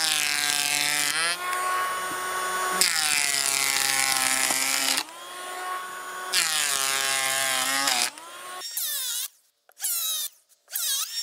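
18 V cordless electric planer running at full speed and taking deep 1.5 mm cuts in wood. Its high motor whine sags in pitch each time the blades bite, eases briefly about five seconds in, and stops about eight seconds in. Electronic music with swooping tones takes over near the end.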